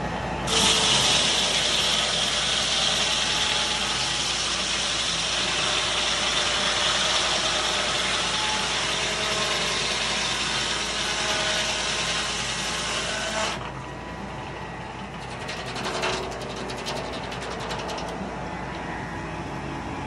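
Foley Belsaw circular sawmill blade cutting through a poplar log: a loud, steady cutting noise starts abruptly about half a second in and stops suddenly after about thirteen seconds. The mill then keeps running at a lower level, with a few knocks near the end.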